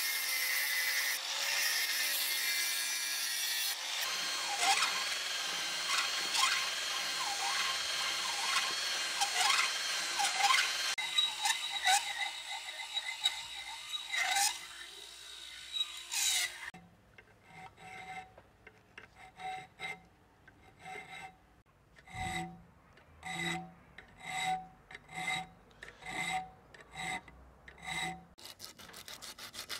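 An angle grinder cutting into a steel blade for the first few seconds. Then a round file rasps back and forth in a notch in the steel knife blade. In the second half the file strokes come separately and evenly, about three every two seconds.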